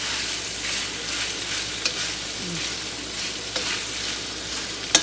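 Thin slices of beef and onion sizzling in oil in a stainless steel wok, stirred with a metal spoon that clicks against the pan a few times.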